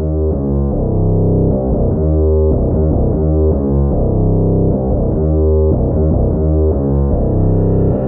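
Instrumental background music with a steady beat and a deep bass line. It sounds muffled, with the treble cut away, until it brightens near the end.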